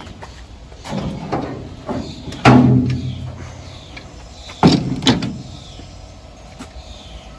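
Steel door of a bare pickup cab being swung and shut while it is test-fitted, with solid metal thumps: the loudest about two and a half seconds in, with a short low ring, and two more close together near five seconds.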